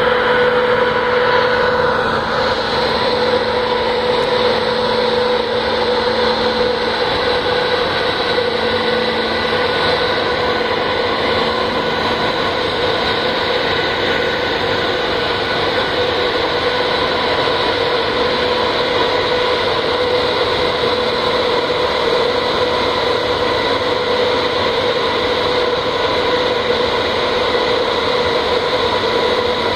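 A berthed ferry's onboard machinery running: a steady drone with several constant pitched tones on top, like engines or generators idling.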